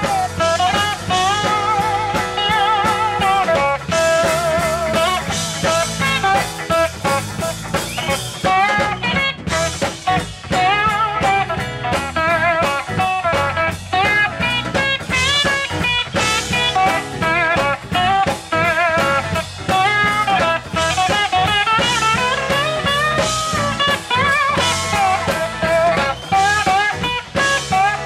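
A live Sacred Steel band plays: a steel guitar leads with sliding, wavering melody lines over electric guitar, bass guitar and drums.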